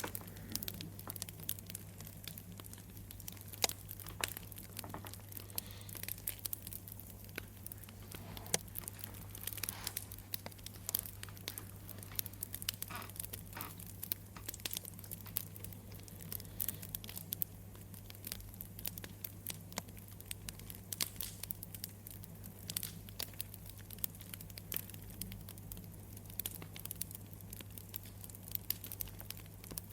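Campfire crackling: wood popping and snapping in quick, irregular clicks over a steady low hum.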